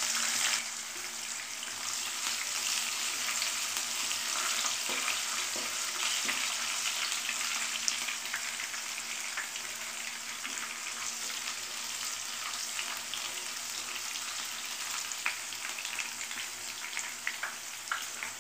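Green chillies and crushed garlic sizzling steadily in hot oil in a nonstick kadai, with scattered crackles from the tempering. A wooden spatula stirs them in the pan.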